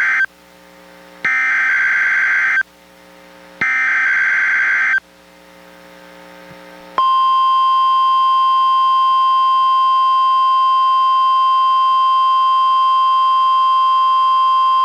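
NOAA Weather Radio test alert played through a weather radio's speaker. It opens with SAME digital header data bursts: the end of one, then two more, each about a second and a half long, about a second apart. About seven seconds in, the steady 1050 Hz NWR warning alarm tone starts and holds.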